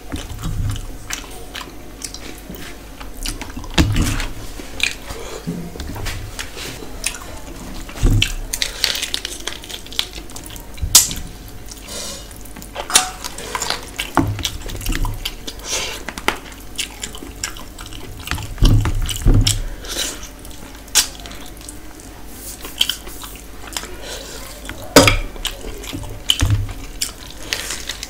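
Hand-eating sounds: fingers squishing rice and curry in a steel plate, with wet chewing on fish and many small clicks, plus a few dull bumps.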